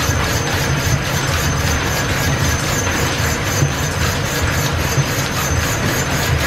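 Steam-powered line-shaft machine shop running: belts and shafting turning with a steady low hum and a quick, even clatter.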